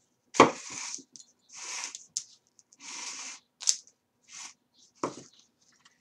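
Thread pulled through a stitching hole in a stack of paper pages, heard as several short rasping pulls, with paper rustling as the pages are handled. A sharp knock about half a second in, the loudest sound, and another about five seconds in.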